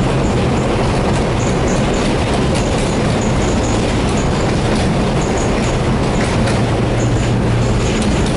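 Tatra tram running along the track: a steady rumble of wheels and running gear with a low motor hum that grows stronger about five to seven seconds in, and occasional clicks as the wheels cross rail joints.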